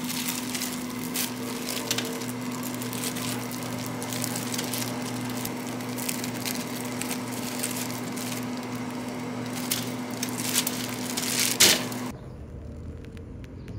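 Crinkling of a plastic glove and crumbling of small baked cakes as they are picked up and broken apart by hand on a perforated metal tray, over a steady appliance hum. A louder crunch comes near the end, and the hum cuts off shortly after.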